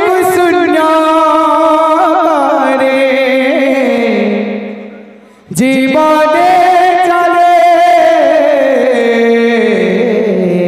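Male kirtan singer singing two long drawn-out phrases, each wavering and sliding down in pitch, with a short break about five seconds in.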